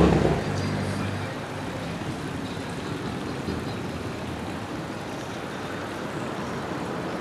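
Outdoor ambience: a passing car's engine fades away in the first second or so, then a steady, even rush of background noise.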